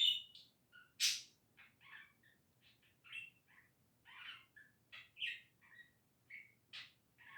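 Pet budgerigar chattering contentedly: a quick, irregular run of short chirps, warbles and squeaks, with a sharper, louder chirp about a second in and another near the end.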